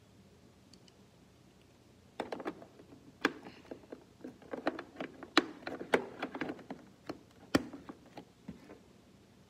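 Irregular run of sharp clicks and taps from small hard plastic tabletop hockey game pieces being handled and set on the board, starting about two seconds in and stopping about two seconds before the end.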